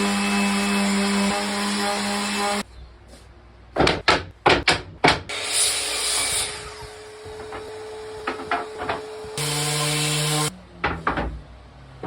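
Woodworking tool sounds: a power tool runs for about two and a half seconds and stops abruptly, followed by a cluster of sharp knocks and a scrape on wood, a faint steady hum, another second of machine noise, and a few more knocks near the end.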